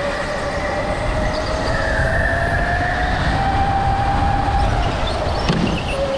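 Go-kart motor whining under a steady low rumble. The whine rises in pitch as the kart speeds up, then drops back near the end.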